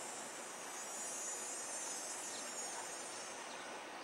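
Insects trilling steadily in a high, hissing drone that swells a little in the middle.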